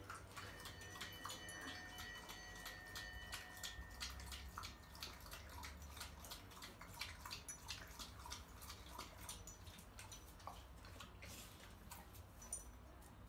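A dog lapping water from a bowl: a quick run of wet, clicky laps, about three or four a second.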